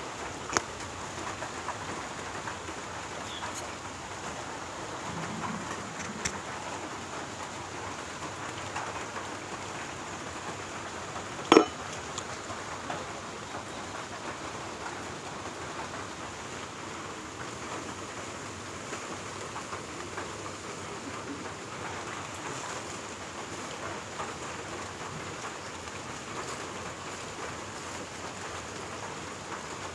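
Steady rain falling, an even hiss, with a few light ticks and one sharper tap about twelve seconds in.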